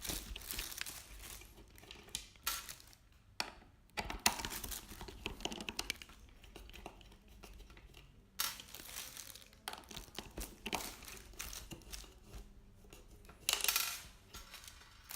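Packaging and parts being handled while a monitor stand is put together: rustling and crinkling in irregular bursts, with small clicks and clinks.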